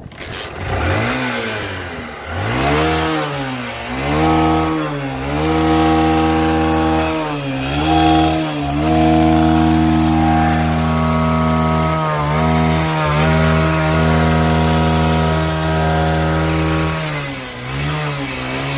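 Honda Shine motorcycle's single-cylinder engine catching about half a second in after a kick-start, then revved hard again and again: the pitch climbs and drops several times and is held high for a few seconds at a stretch.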